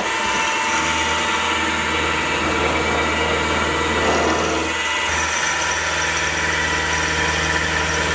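Sieg X2.7L mini milling machine running with an end mill cutting a slot into a metal block: a steady motor hum and spindle whine under the hiss of the cut. Its tone shifts slightly about five seconds in.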